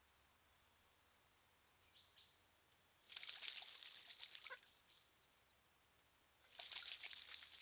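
Juvenile currawong bathing in a birdbath: two bouts of splashing as it flicks its wings in the water, about three seconds in and again near the end.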